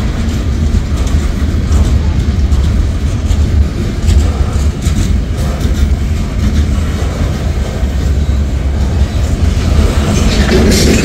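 Freight train's boxcars rolling past: a steady, loud low rumble of steel wheels on rail with scattered clicks and clanks, which grow into a louder clatter near the end.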